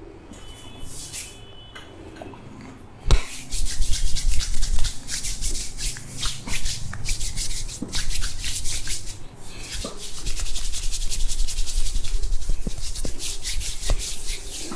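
Hands rubbing hard over hair and scalp in a head massage. A soft rustle turns, about three seconds in, into a loud, dense, crackling rustle with a few sharper clicks.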